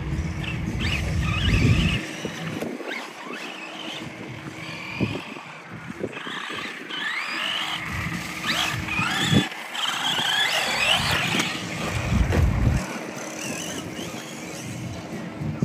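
RC cars racing around a track, their motors whining up and down in pitch as they accelerate and brake, several at once. Bursts of low rumble come and go underneath.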